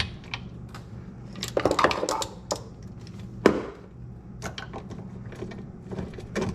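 Metal clinks and knocks of parts and hand tools being handled while bolts are fitted to a washing machine's clutch and actuator, with a sharper knock about halfway through.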